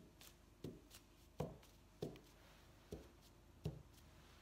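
Halved potato stamp loaded with acrylic paint being dabbed onto a cotton tote bag: about six faint, soft taps, irregularly spaced.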